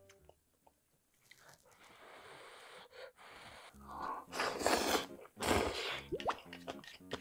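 A person slurping a big mouthful of instant ramen noodles, with two loud noisy slurps about four and five and a half seconds in.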